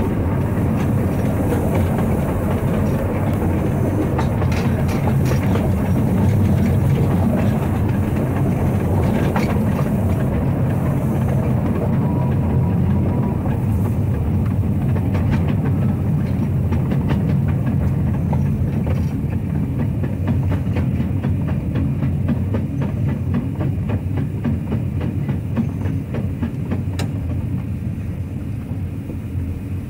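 1905 W.G. Bagnall narrow-gauge steam locomotive Polar Bear running along the line, heard from its footplate: a steady low rumble with rapid clicking of wheels on track. It grows quieter over the last few seconds.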